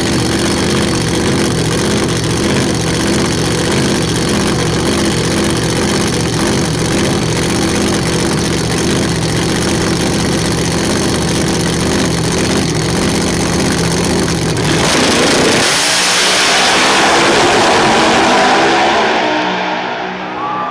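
Two Pro Mod drag cars' engines idling steadily at the starting line. About fifteen seconds in they launch at full throttle, much louder, and the sound fades as they run away down the track near the end.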